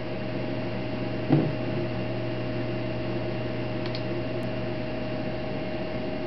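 Steady electrical hum and hiss with one constant tone. A low thump comes about a second in, and faint computer mouse clicks about four seconds in as a song is picked in the music library.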